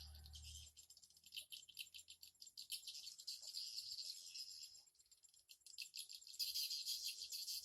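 Swiftlets twittering: a dense, fast run of high-pitched clicking chirps, growing louder near the end.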